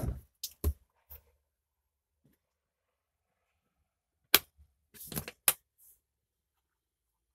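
Short clicks and knocks of a hand handling the cover over an airliner emergency exit's handle, with a few at the start, one sharp click about four seconds in, and a quick cluster of clicks a second later.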